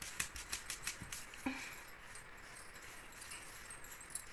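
Labrador scratching itself, its collar jingling in a quick run of clicks, with a short whine about one and a half seconds in.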